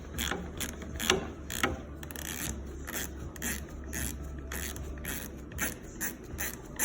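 Socket ratchet clicking in a steady run, about three clicks a second, as a 7mm bolt is backed out.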